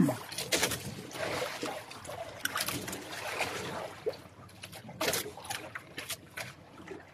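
Spoons clinking and scraping on plates during a meal, over a steady wash of water lapping against a small boat's hull.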